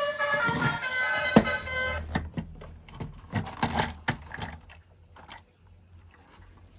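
A short electronic melody plays and stops about two seconds in, followed by scattered plastic clicks and rustles of toy vehicles being handled over a faint low hum.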